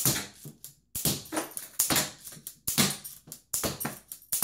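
K'nex TR8 rubber-band gun firing yellow rods in quick succession: a sharp snap of the band-driven firing pin about once a second, with lighter plastic clicks in between.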